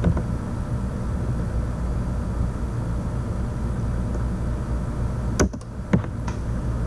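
A steady low rumble with no music, and two sharp clicks about five and a half and six seconds in.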